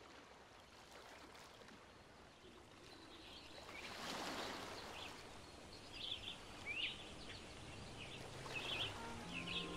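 Outdoor ambience fading in, with birds chirping and calling from about the middle on and a soft rush of noise a little before. A low, sustained musical tone comes in near the end.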